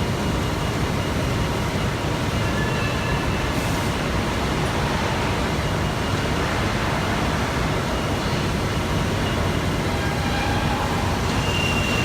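Steady industrial machine running noise, a dense even rumble with faint high whines coming and going.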